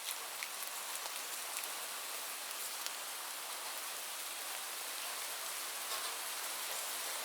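Heavy rain falling steadily: an even hiss of rainfall with many scattered sharp ticks of individual drops.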